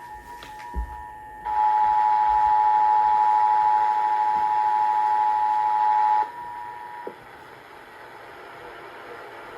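Emergency Alert System two-tone attention signal, two steady tones sounded together just below 1 kHz (853 and 960 Hz). It is faint at first, comes in loud about a second and a half in for roughly five seconds, then drops back faint and stops about seven seconds in.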